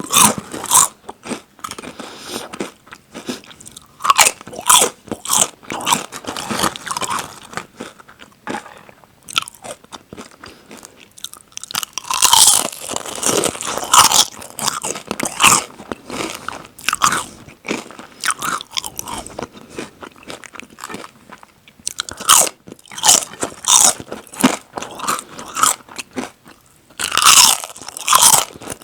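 Close-miked crunching of potato and tortilla chips: sharp bites followed by runs of chewing crackle, with the loudest flurries about halfway through and again near the end.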